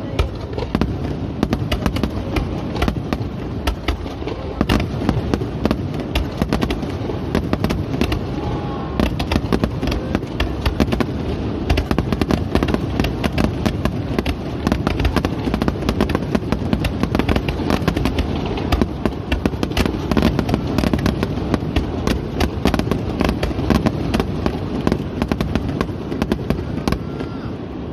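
Fireworks display with aerial shells bursting without pause: a dense, irregular stream of overlapping bangs and crackles, several a second, over a constant low rumble.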